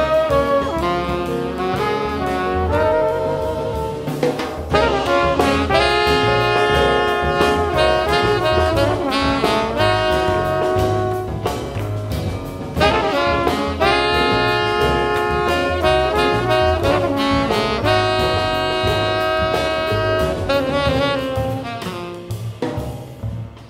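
Live jazz ensemble: tenor saxophone and trumpet play a melody together over double bass and drums, with long held notes. The band breaks off briefly near the end.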